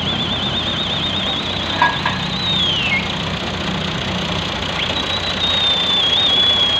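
Farm tractor engine idling steadily, with a sharp click a little under two seconds in. Twice a high, warbling whistle-like tone sounds over it, each ending in a falling slide.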